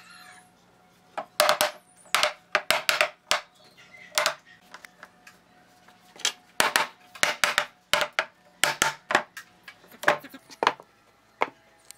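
Sharp knocks in quick runs of two to five, a mallet tapping the boards of a pine panel held in pipe clamps, each knock with a short ringing note.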